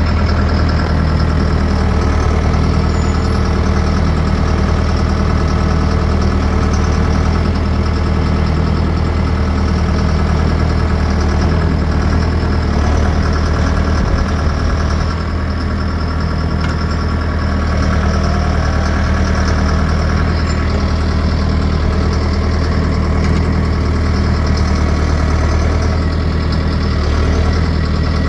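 A vehicle engine running steadily at an even speed.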